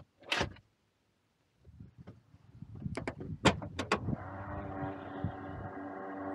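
Several sharp clicks and clunks, then the electric motor of a Volvo estate's powered tailgate humming steadily with a whine as the tailgate lifts.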